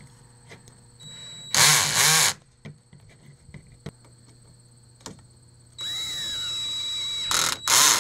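DeWalt 20V MAX cordless drill/driver with a socket bit driving the chair frame's bolts. The motor whirs in two runs, one about a second in and one near the end, and each run comes with a short, much louder burst.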